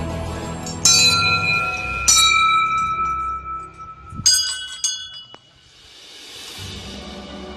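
Hanging brass temple bells struck several times, each strike ringing on with clear sustained tones, over background music.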